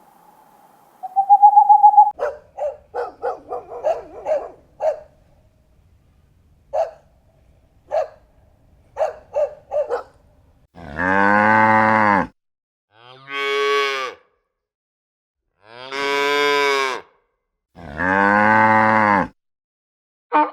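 Cows mooing: four long moos in the second half, one of them higher-pitched, preceded by a held note and a string of short animal calls in the first half.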